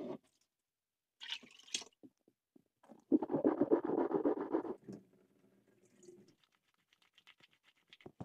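Water being poured and splashed into a small stainless-steel basin as hot and cold water are mixed for washing, with one loud stretch of about a second and a half in the middle and brief softer splashes around it.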